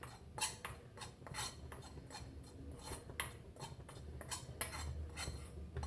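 A spoon stirring and scraping turmeric powder as it dry-roasts in a pan, in short repeated strokes about two a second.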